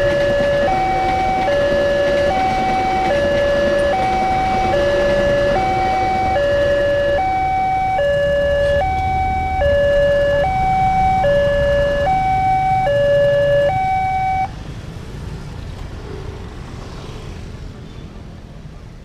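Railway level-crossing warning alarm: an electronic two-tone signal alternating between a lower and a higher tone, each held about three-quarters of a second, as the train clears the crossing and the barrier lifts. It cuts off suddenly about three-quarters of the way through, leaving road traffic noise that fades away.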